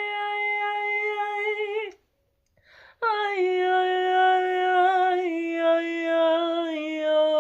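A woman's voice singing long, wordless held tones as a healing sound transmission. One steady note breaks off about two seconds in; after a pause of about a second a new note begins and steps down in pitch twice.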